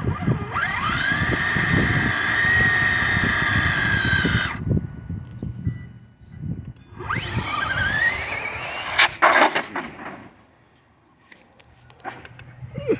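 Electric motor of a Traxxas Slash 2WD RC drag truck whining up in pitch under full throttle and holding a steady high whine for about four seconds before cutting off suddenly. A second run follows with another rising whine, ending in a burst of sharp clicks.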